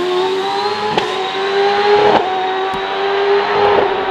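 Racing hillclimb car engine at high revs powering up the hill, one steady high note that climbs slightly, with sharp cracks about one and two seconds in.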